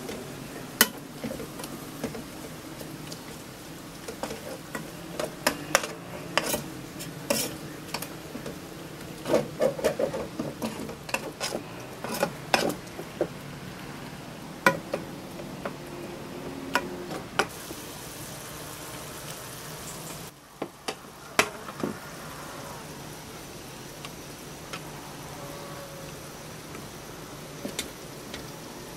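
Cooking utensils knocking, clinking and scraping against a metal cooking pot as food is stirred and lifted out, with irregular sharp clinks over a steady low background.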